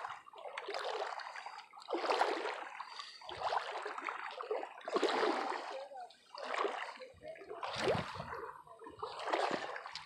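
Small waves lapping and splashing against a rocky lakeshore, coming in a run of short swells about a second apart.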